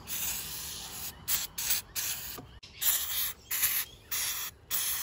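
Aerosol carburettor cleaner hissing as it is sprayed onto a plastic primer cap to clean it: a steady spray for about a second, then a series of short bursts.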